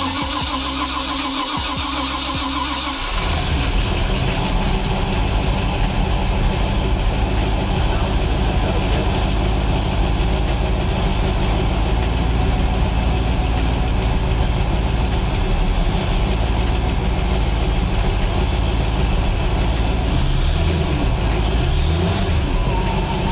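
Rebuilt Mercruiser 5.7 L small-block Chevy V8 marine engine cranked on the starter for about three seconds, then catching and settling into a steady idle that runs smoothly ("really sweet").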